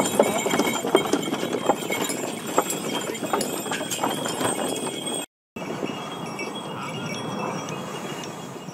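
Draft horses' hooves clip-clopping on a track as they pull a wagon, in quick irregular strikes. After a short break about five seconds in, the clopping gives way to a steadier sound from a jet airliner passing low overhead.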